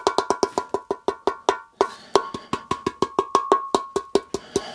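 Loose rust flakes rattling inside the small steel under-seat fuel tank of a Yamaha XV1100 Virago as the tank is shaken: a rapid, even run of clicks, about eight a second, each with a short metallic ring from the tank.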